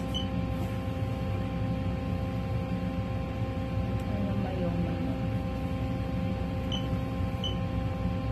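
Steady machine hum with a constant whine over a low rumble, with a faint voice briefly about four seconds in and a few faint short chirps near the end.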